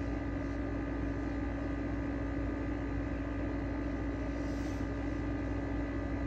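Steady mechanical hum with a strong low held tone and fainter higher tones over a noise bed; a faint brief hiss about four and a half seconds in.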